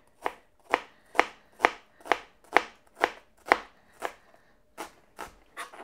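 A kitchen knife chopping shallots finely on a plastic chopping board: a steady knock of the blade on the board about twice a second, turning fainter and less even near the end.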